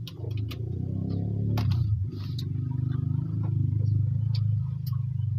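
A steady low motor drone with a fast flutter, like an engine running close by, with scattered small clicks and mouth sounds from someone eating.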